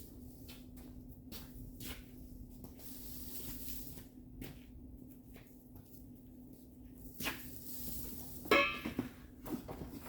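Light clicks and knocks of tools and metal being handled during bodywork, with one loud, ringing metallic clang about eight and a half seconds in, over a steady low hum.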